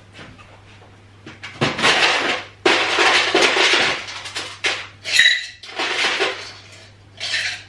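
Ice cubes clattering into a metal cocktail shaker in several bursts, with a short metallic ring about five seconds in.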